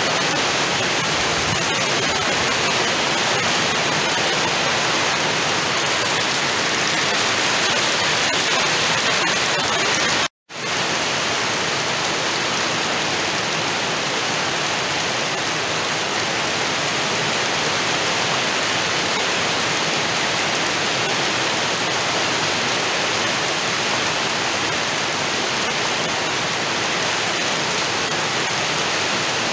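Heavy rain falling steadily, a dense even hiss. The sound drops out completely for a split second about ten seconds in, then resumes unchanged.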